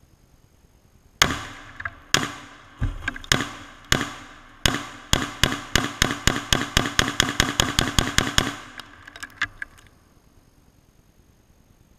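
FN SCAR 17 rifle shooting into a CRT television, about two dozen loud shots: a few single shots spaced under a second apart, then a fast string of about four to five shots a second that stops about eight and a half seconds in. A few faint ticks follow.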